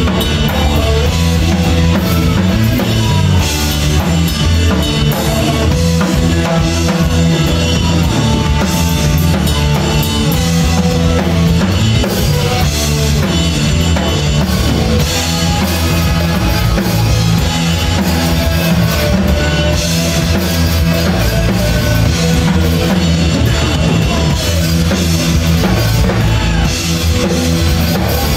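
Rock band playing live at full volume: drum kit with cymbals and bass drum up front, with electric bass and guitar.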